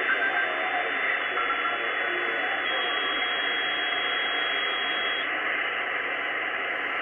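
Icom IC-R8500 communications receiver in sideband mode on the XW-2F satellite downlink: steady hiss with faint, garbled sideband voice in the first half-second. A thin high whistle over the hiss steps down in pitch twice and stops about five seconds in.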